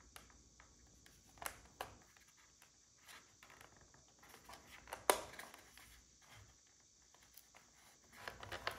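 Quiet handling sounds of fingers working a wire control rod into a small plastic control arm: a few scattered light clicks and taps, the sharpest about five seconds in, and a short run of small clicks near the end.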